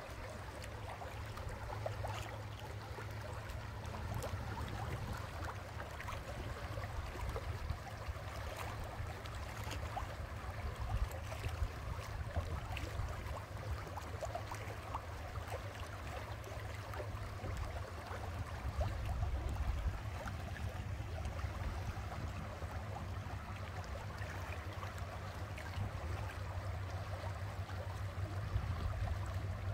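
Boat motoring through moving water: a steady low engine hum under water rushing and gurgling along the hull, with small crackles and splashes.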